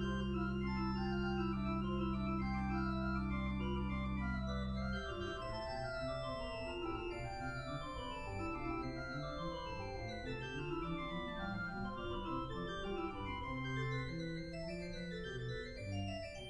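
Church pipe organ playing Baroque music. For about the first five seconds it holds a low chord with deep pedal bass, then several voices run in quick climbing and falling lines against one another.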